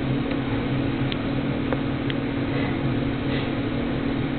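Steady low electrical or mechanical hum over a background hiss, with a few faint clicks about one and two seconds in.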